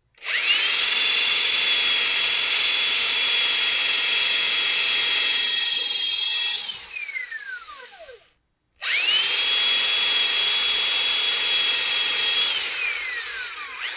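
Corded electric drill with a 7/16-inch bit boring pilot holes in a wooden bench top for 1/2-inch lag bolts. It spins up to a steady high whine for about six seconds and winds down with a falling pitch. After a short pause it runs again for about four seconds and winds down the same way.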